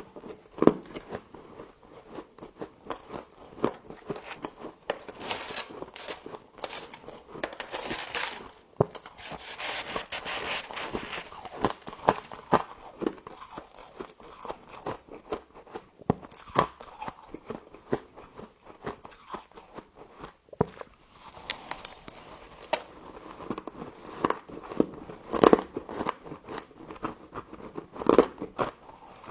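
A person biting and chewing crunchy frost close to the microphone, with many sharp crunches scattered throughout and a denser, hissing crackle for several seconds in the middle.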